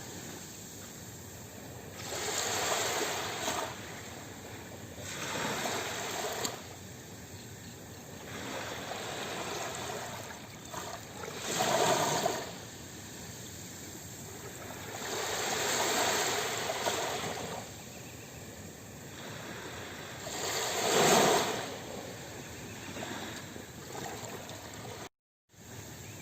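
Sea waves washing in on a shore, a surge of surf swelling and falling away every few seconds between quieter wash. The sound cuts out briefly near the end.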